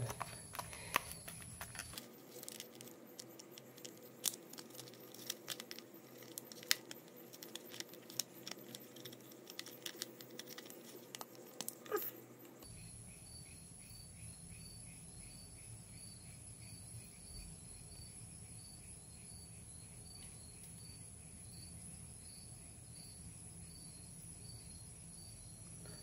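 Clear plastic clamshell packaging of a laptop RAM module being handled and pried open, giving irregular crackles and clicks for about ten seconds, then stopping about halfway through. Afterwards there is only a faint background with a soft chirping repeated at an even pace.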